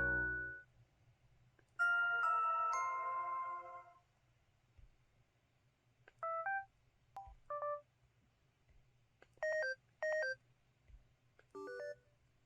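LG-T390K Wine 3G phone's built-in system sound effects: a short multi-note electronic chime about two seconds in, then a series of brief two-note electronic beeps spaced a second or two apart.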